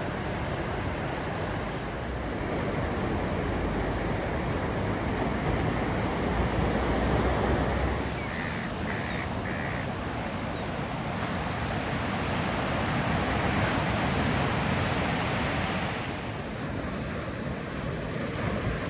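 Ocean surf breaking and washing on a beach, swelling and easing, with wind buffeting the microphone. A bird calls three short times about eight seconds in.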